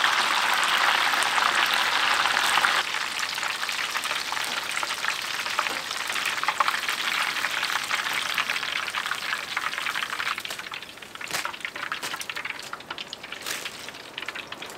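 Battered Korean twigim frying in hot oil: a dense, crackling sizzle that eases a little about three seconds in and drops lower over the last few seconds, with a few sharp clicks near the end.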